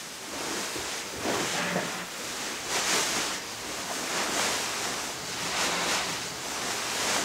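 Beanbags rustling as people settle and shift in them, the bead filling hissing in repeated swells.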